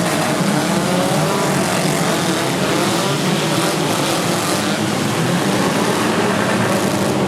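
A pack of four-cylinder demolition derby cars with engines running and revving together, a steady dense din.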